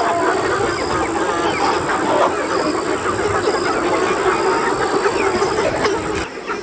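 A large flock of poultry calling together: many short calls overlap in a continuous chorus. A thin, steady high-pitched tone runs underneath.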